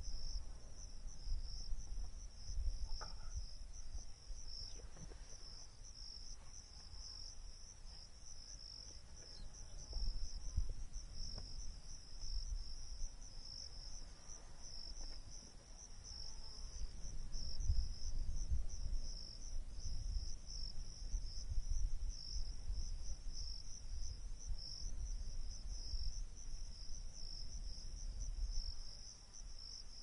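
A steady insect chorus, a high, fast pulsing trill that continues unbroken, over an uneven low rumble.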